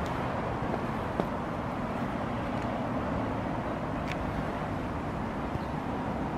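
Steady outdoor background noise, with a light click about four seconds in as the slope car's call push-button is pressed.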